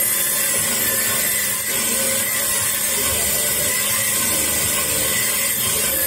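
Electric key-cutting machine running, its spindle cutter milling a metal key blank clamped in the vise: a steady motor hum with a high hiss of metal being cut.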